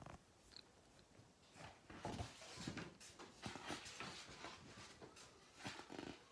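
Faint rustling and a few soft knocks as a picture book is handled and its pages are turned by hand.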